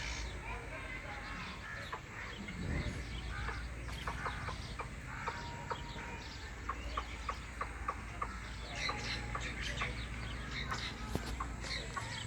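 Bird calls, short clucking notes repeated irregularly over steady outdoor background noise.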